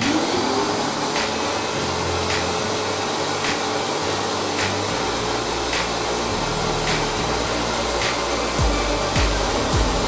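Stanley SXVC50XTDE stainless-steel wet and dry vacuum switched on: its motor spins up with a rising whine in the first half second, then runs steadily with a loud rush of air through the hose. A low fluttering rumble joins in near the end.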